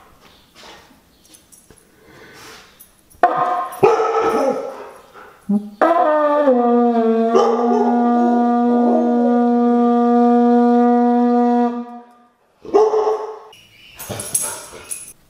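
A conch shell horn is blown in one long, steady note of about six seconds, which slides down in pitch as it starts. A Siberian husky howls along during the note. The husky also gives short outbursts of howling before and after the note.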